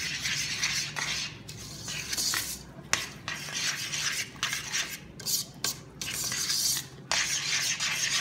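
A utensil scraping and knocking against a stainless steel pot while stirring a thick mix of condensed milk, toasted coconut and butter, in repeated strokes with short pauses and a few sharp knocks.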